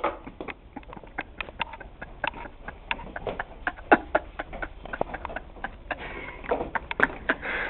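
Scattered small clicks and knocks, irregularly spaced, of objects being handled, with a short hiss about six seconds in.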